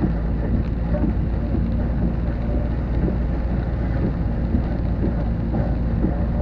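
Thunderstorm noise: a steady low rumble of wind on the microphone, with rain pattering through it.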